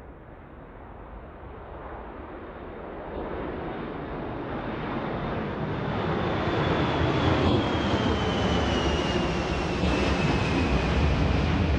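Aircraft engine noise approaching and swelling steadily louder, with a thin high whine that slowly falls in pitch as it nears, played as a soundtrack sound effect.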